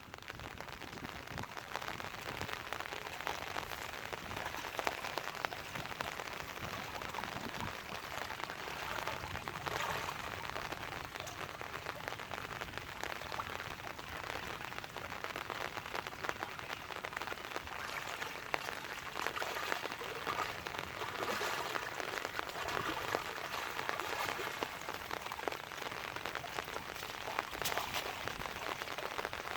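Steady rain falling, a dense even hiss of many small drop hits.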